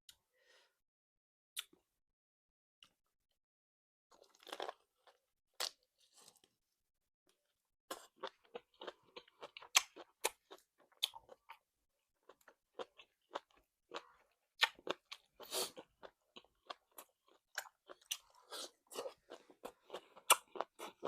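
Close-miked chewing and crunching of salt-baked chicken with its tough, crisp skin: a few scattered sounds at first, then steady irregular crunching and smacking from about eight seconds in.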